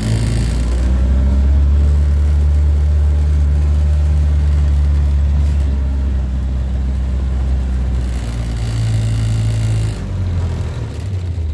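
Small farm utility vehicle's engine running steadily, with a low, even hum. About eight seconds in the pitch shifts and a brief hiss comes in before it settles again.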